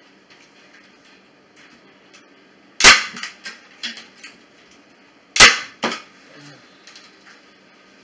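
Staple gun firing twice, two loud sharp snaps about two and a half seconds apart, driving staples through chicken wire into a wooden frame, with a few lighter clicks after each.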